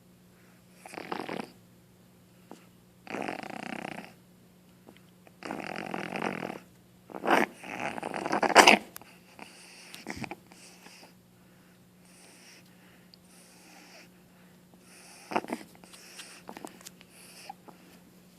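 Boston terrier puppy coughing and hacking in a run of bursts over the first nine seconds, the strongest about eight seconds in, then quieter breathing with a few short coughs later on. The owner takes it for mucus or phlegm in her throat.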